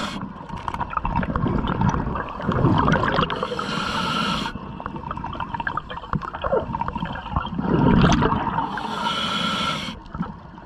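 Scuba diver breathing underwater through a regulator: hissing breaths through the regulator twice, about five seconds apart, alternating with gurgling surges of exhaled bubbles.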